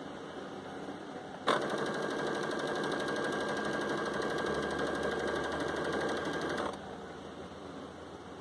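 Baby Lock Jubilant domestic sewing machine stitching a double-folded hem: a steady run of rapid stitches that starts abruptly about a second and a half in and stops about five seconds later.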